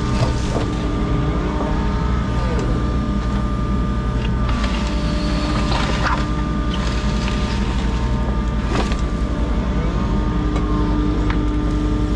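Diesel engine of a compact construction machine running steadily under work, with a few short knocks and clanks in the middle.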